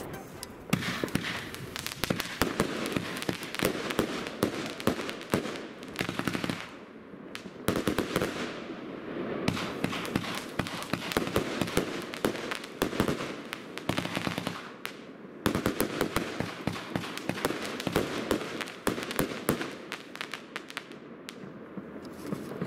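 Geisha Silver Ice 35-shot fan-shaped firework cake, 25 mm calibre, firing alternating salvos: dense rapid pops and crackling bursts, with brief lulls between salvos about seven, fifteen and twenty-one seconds in.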